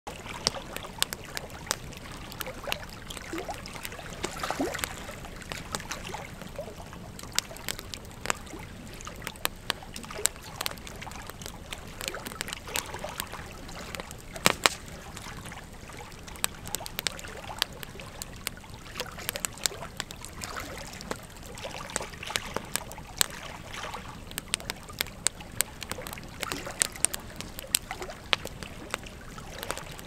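Wood campfire burning: irregular sharp crackles and pops from the burning logs over a steady low rush of flame, with the loudest pops about halfway through.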